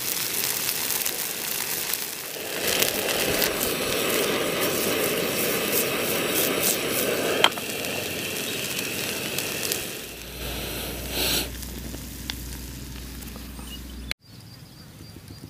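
Food sizzling and crackling as it fries in a camping pan on a portable gas stove. About ten seconds in the sizzle drops away to a quieter sound with a steady low hum, and it cuts off suddenly near the end.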